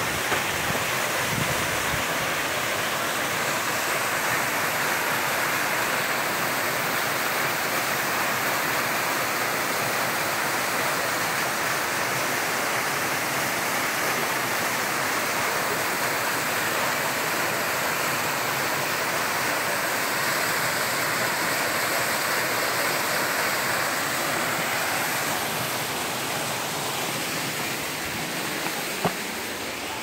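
Waterfall pouring down a rock cliff into a boulder pool: a steady rush of falling water that grows a little quieter near the end.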